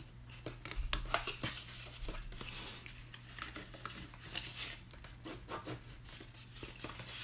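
Stiff cardstock crinkling and rubbing as the scored tabs of a paper box are folded and creased by hand. It comes as a string of irregular soft clicks and scrapes.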